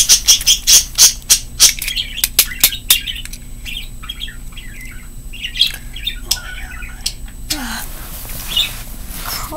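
Plastic Beyblade Burst launchers and ripcord being handled: quick runs of sharp plastic clicks with short high squeaks, dense in the first three seconds and sparser after. Near the end there is a soft rustle of movement.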